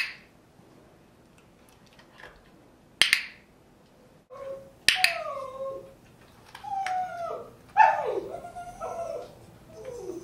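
A dog-training clicker clicks three times, at the start, about three seconds in and about five seconds in, each click marking the poodle's head-lowering during shaping. From about four seconds in, the poodle whines in a series of short, wavering rising and falling cries.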